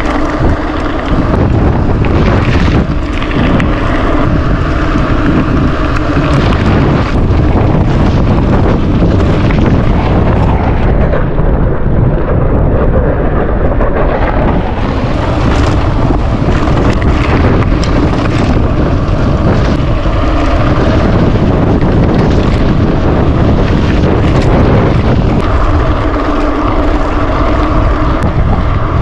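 Loud, steady wind rushing over the microphone of a camera on a bicycle coasting fast downhill, with rumble from the road.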